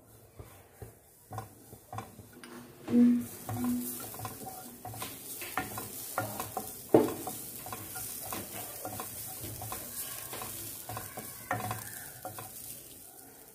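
Coconut being roasted in a hot kadai: a spatula stirring and scraping against the pan in many short strokes, with a louder knock about three seconds in and again midway. A light sizzle sets in after the first few seconds.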